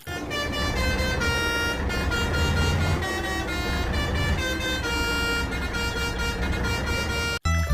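Vehicle engine running with a low steady rumble and a multi-tone horn sounding over it, its notes shifting every second or two. It cuts off suddenly near the end.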